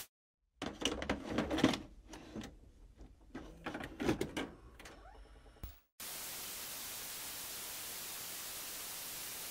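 A VHS cassette being loaded into a VCR: a run of clicks and clunks from the cassette and the loading mechanism. About six seconds in, these give way to a steady hiss of tape static.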